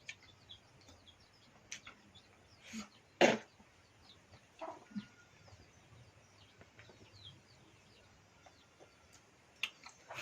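Chickens clucking now and then, with faint high chirps throughout and one louder sharp sound a little over three seconds in.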